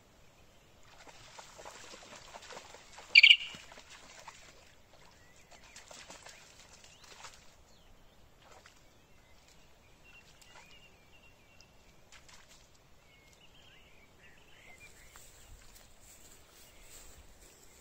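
A dog wading and splashing through shallow, muddy swamp water, with one loud, short, high-pitched call about three seconds in. Small birds chirp faintly later on.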